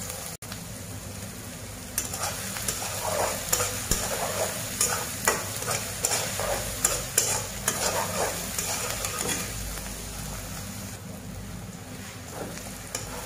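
Chopped onions with ginger and garlic sizzling in hot oil in a wok, while a metal spatula scrapes and clacks against the pan as they are stirred. The stirring strokes come thick and fast from about two seconds in, then ease off in the last few seconds, leaving mostly the sizzle.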